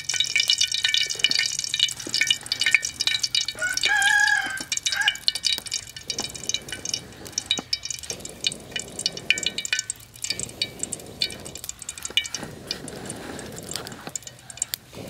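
Wok smoking hot over a wood fire, sizzling and crackling, with thin whistling tones in the first few seconds. From about six seconds in come several long breathy rushes, each about a second and a half, as someone blows on the fire to fan it.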